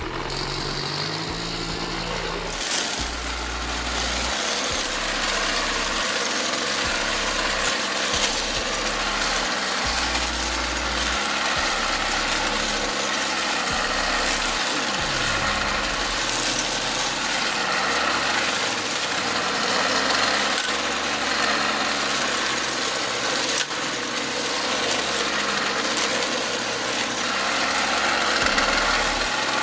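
Brushcutter engine catching about two and a half seconds in, then running steadily at speed as its homemade blade, welded from pieces of a worn brushcutter blade, cuts through weeds and grass.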